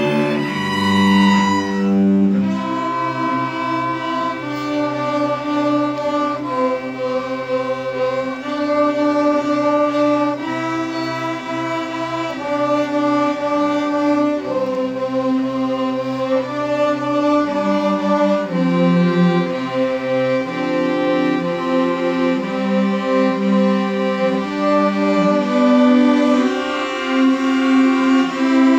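Small string ensemble of violins and two cellos playing a slow arrangement, bowed notes held and changing chord every second or two, with the cellos carrying a low line beneath the violin melody.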